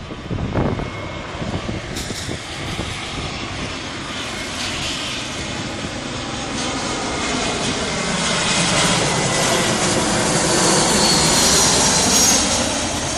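Jet airliner on landing approach passing low overhead: its engine noise swells steadily to loudest about twelve seconds in, with a high fan whine at the peak.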